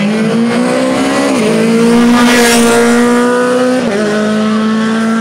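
Rally car passing at speed on a tarmac stage, its engine held at high revs. The engine note dips briefly about a second in and again near four seconds, and the sound is loudest about two and a half seconds in as the car goes by.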